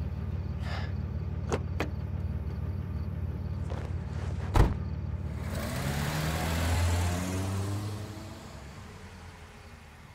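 Car engine idling, with a few light clicks and then a car door slamming shut about four and a half seconds in. The car then pulls away, its engine rising in pitch with tyre noise, and fades into the distance.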